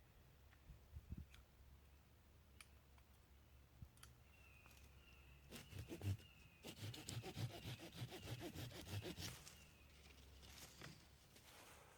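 Saw cutting through a green sapling: a short run of rhythmic back-and-forth strokes, about three a second, for roughly three seconds midway, with faint scattered ticks and rustles before and after.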